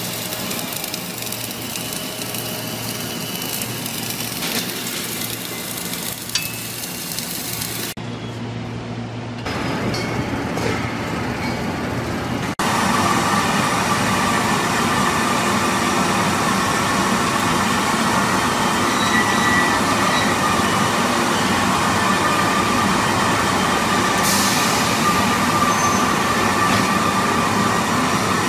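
LPG cylinder factory machinery running: first while a cylinder turns in its fixture and its seam is submerged-arc welded. After abrupt changes about 8 and 12 seconds in, there is a louder steady industrial drone with a steady whine from the gas-fired heat-treatment furnace line, where the cylinders ride a conveyor.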